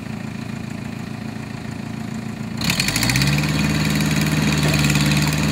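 Case backhoe's diesel engine idling, then revved up a little under three seconds in and held at the higher speed, louder from then on.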